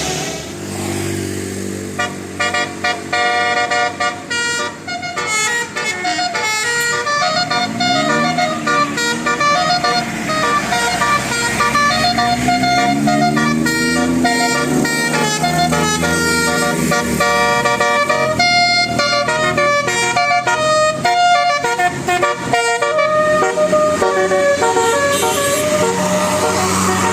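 A bus's telolet basuri musical horn plays a quick tune of short notes that keep changing pitch. A lower sound glides up and down beneath it for a while in the middle.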